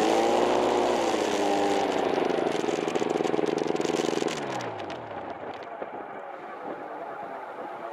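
Fresh Breeze XCitor paratrike's engine and propeller running steadily, then shut off about four seconds in, the pitch falling as it spins down to a stop. Faint scattered clicks follow.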